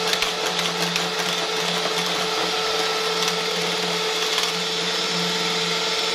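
Electric hand mixer running at a steady speed, its twin wire beaters whipping a thin egg-and-oil cake batter in a glass bowl, with a few faint clicks.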